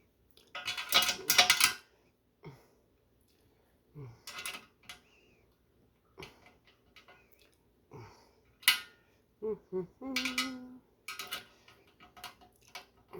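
Metal tools and hardware clinking and clattering in short, irregular bursts while the fruit press is put together by hand, the loudest about a second in.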